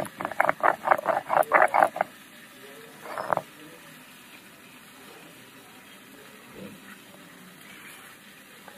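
Stone roller (nora) rubbed back and forth on a flat grinding stone (sil), crushing mustard seed and green chillies into paste: a quick run of rasping strokes, about four to five a second, that stops two seconds in, with one more scrape about three seconds in.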